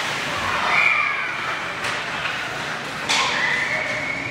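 Ice hockey play in an echoing rink: sharp clacks and scrapes of sticks and skates on the ice. Two held high-pitched tones come over it, a short one about a second in and a longer one near the end.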